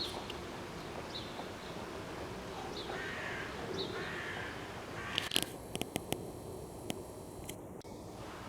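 Birds calling: short high chirps about once a second, with a couple of harsher, longer calls in the middle. A few sharp clicks come a little past halfway.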